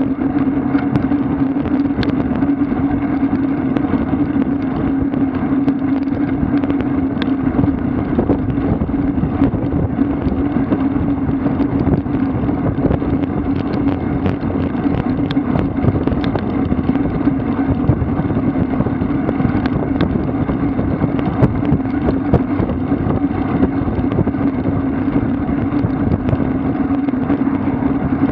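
Steady wind rushing over the microphone of a camera on a road bike moving at about 40–48 km/h, with a constant low hum and scattered light clicks.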